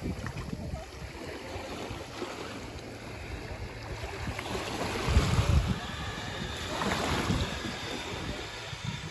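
Wind buffeting the microphone in gusts, over small waves lapping at the shore. In the second half a faint steady whine comes from the radio-controlled model boat's motor as it runs away across the water.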